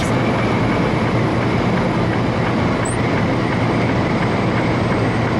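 A semi truck cruising on the highway: a steady, loud drone of engine and road noise, with a faint steady whine.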